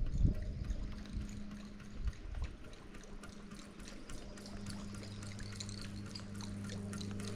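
Water pattering and splashing with many small scattered ticks, over a steady low hum that grows stronger about halfway through.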